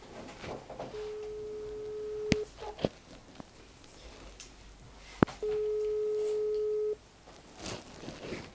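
Outgoing WhatsApp call ringing through a phone's speaker: two long, steady ringback beeps about three seconds apart while the call goes unanswered. A sharp click comes just before each beep's end and start, the second one the loudest thing heard.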